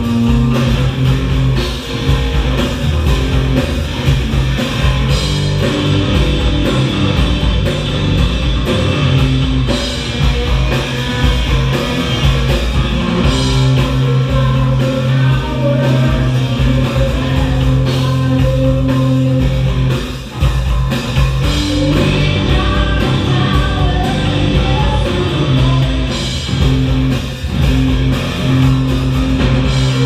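Live rock band playing: electric guitar, electric bass and drum kit, loud and continuous.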